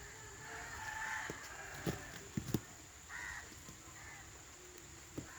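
Crows cawing several times. A few sharp knocks sound between the calls, the loudest near the middle.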